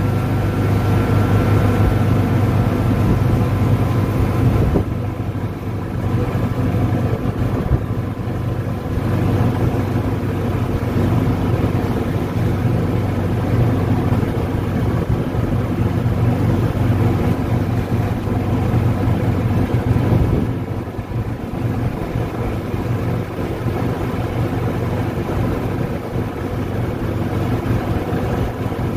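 Golf cart driving along a paved street: a steady low hum from the cart with road and rolling noise throughout. It eases briefly about five seconds in and again about twenty seconds in.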